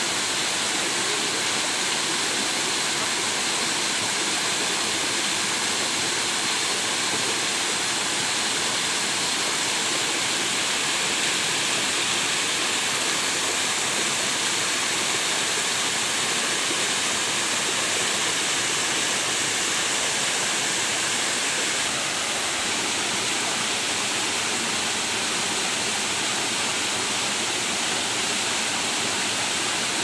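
Steady rush of a small forest waterfall and water running over rocks, a little quieter from about two-thirds in.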